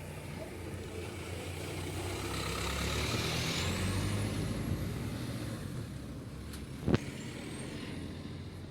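Vehicle engine running steadily and growing louder in the middle, with a high whine that rises in pitch, and one sharp click about seven seconds in.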